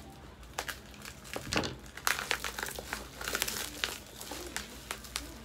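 Packaging crinkling and rustling as it is handled: irregular crackles, busiest from about half a second in to near four seconds, then thinning out.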